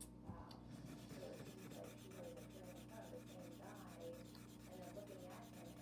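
Faint scratching and rubbing of a marker on paper while a drawing is coloured in.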